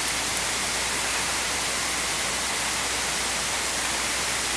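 Steady hiss with a low hum underneath: recording noise from a distant camera in a hall, with no other sound.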